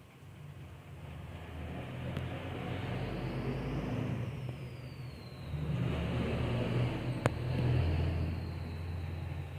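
A sick puppy snoring loudly, two long snoring breaths that swell and fade with a short dip between them.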